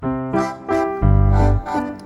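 Background music played on a keyboard, a run of short notes with a deep bass note coming in about halfway through.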